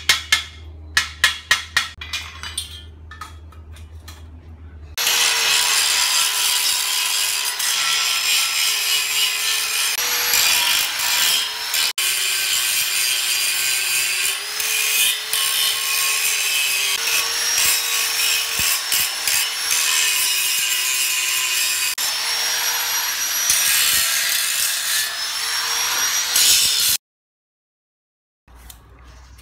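Angle grinder grinding a square hollow steel tube frame: a loud steady whine that wavers and dips in pitch as the disc bears into the metal, cutting off suddenly near the end. Before it starts comes a quick run of about a dozen sharp metal knocks.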